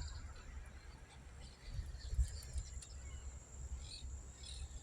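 Outdoor ambience: a steady high-pitched insect trill with a few faint bird chirps, over a low rumble of wind on the microphone.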